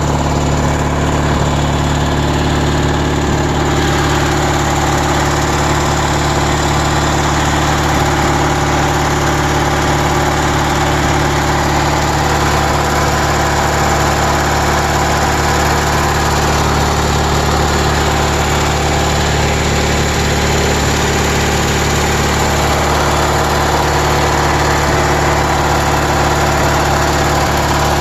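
Riding lawn mower's engine running steadily at a constant speed.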